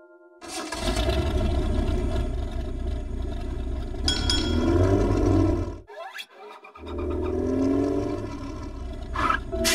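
Cartoon bus engine sound effect: the engine starts and runs with a rough, low rumble. It cuts out briefly about six seconds in, then starts up again as the bus pulls away.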